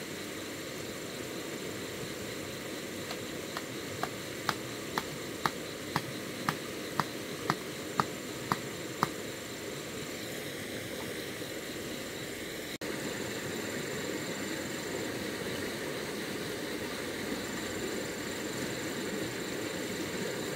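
Steady rush of flowing river water. From a few seconds in, a run of about a dozen sharp knocks at about two a second, made while work goes on at the water's edge with a machete and bamboo stakes. After a brief break about two-thirds of the way through, the water sounds a little louder.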